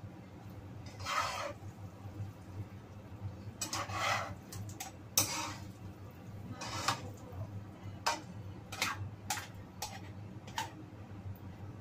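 Cooking utensils scraping and stirring fried noodles in a nonstick wok in several rubbing strokes, then four short sharp taps of a utensil against the pan in the second half. A steady low hum runs underneath.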